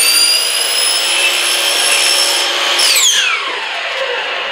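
Hitachi sliding compound miter saw running at full speed with a steady high whine as it cuts a ThermalBuck rigid-foam piece. The motor is switched off about three seconds in and winds down with a falling whine.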